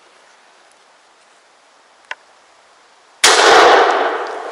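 A single shotgun shot about three seconds in, fired at a hazel grouse: a sudden loud crack that fades slowly as it echoes through the forest.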